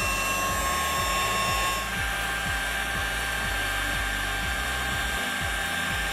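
Electric heat gun running steadily, its fan and motor giving an even whine, over background music with a steady beat.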